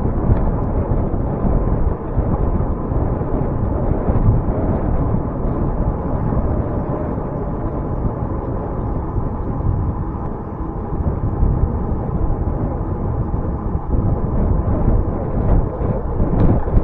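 Wind buffeting the microphone of a camera riding along on a moving bicycle: a steady, fluttering low rumble.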